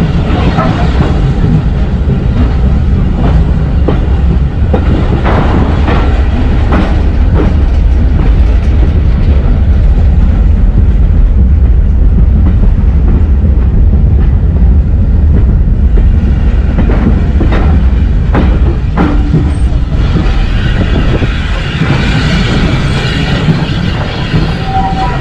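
Heritage railway train running along the track: a steady, loud rumble of wheels on rail, with a few scattered clanks and clicks.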